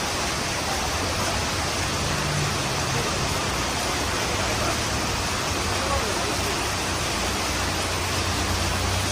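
Steady hiss of heavy rain, with a low hum underneath that grows stronger near the end.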